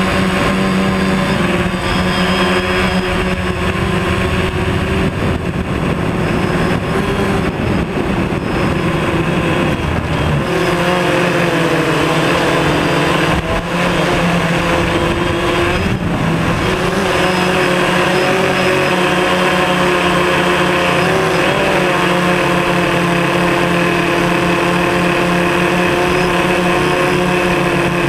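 DJI Phantom quadcopter's motors and propellers whining steadily, heard close up from the camera mounted on the drone; the pitch dips and rises several times as the motors change speed. A low rumble sits under it for about the first ten seconds, then drops away.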